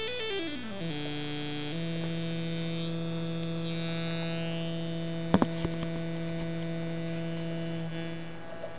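Auduino, an Arduino-based granular synth, played in pentatonic mode through a small LM386 "Little Gem" amplifier. Its tone falls in pitch over the first two seconds, then holds one low note for about six seconds while its upper tones sweep, and stops shortly before the end. A couple of sharp clicks come about five seconds in.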